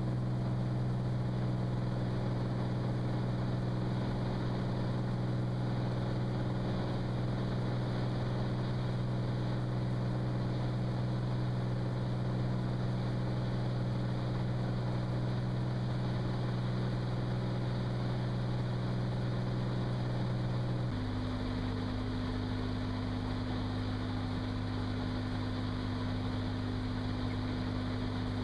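Cirrus SR22's 310 hp six-cylinder engine and propeller droning steadily, heard inside the cabin in flight. About three-quarters of the way through, the drone changes suddenly to a lower pitch and gets slightly quieter.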